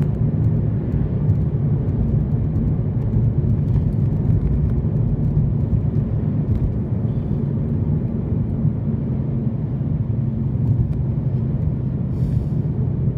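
Steady low road and engine noise heard inside the cabin of a moving car.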